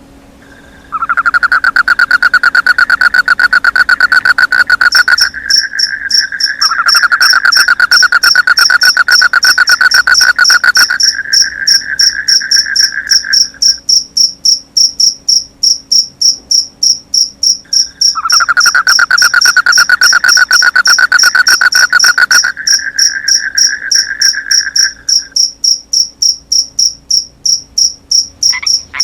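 Night chorus of crickets and frogs. Long, fast-pulsing trills of several seconds each come and go in three bouts over a steady, high-pitched cricket chirping, with a few frog croaks right at the end. It starts abruptly about a second in.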